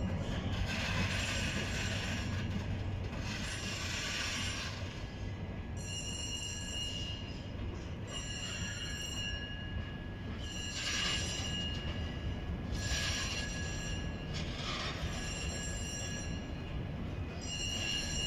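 Grain hopper wagons rolling slowly during shunting over a low rumble, their steel wheels squealing against the rails in repeated high-pitched bouts every second or two.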